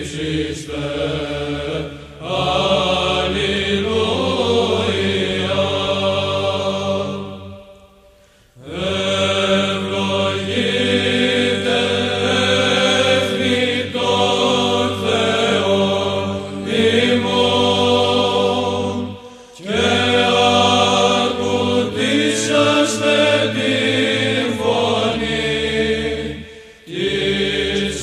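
Male choir of Orthodox monks chanting Byzantine chant in Greek, in plagal second mode: a melody sung over a steady low held note. The singing pauses briefly three times, at about 8, 19 and 27 seconds in.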